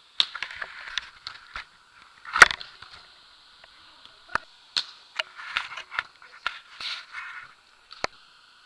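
Beach volleyball being played: irregular sharp knocks and clicks of the ball being hit and handled, the loudest about two and a half seconds in.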